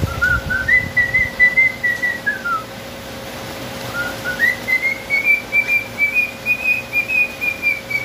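A man whistling to a cockatiel to get it to copy him: two long whistled phrases. The first steps up in pitch and drops off at its end; after a short pause, the second rises and is held with a slight waver.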